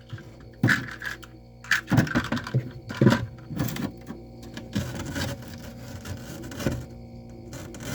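Snack packs and containers being handled and set into a fridge organizer: a run of light knocks and clicks with rustling between them.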